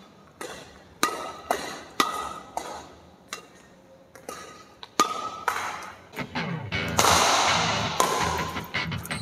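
Badminton shuttlecocks struck in quick succession with an Apacs Satelite 88 racket: sharp string pings, roughly two a second, each with a short echoing ring. About six seconds in, a louder steady sound swells up beneath the hits.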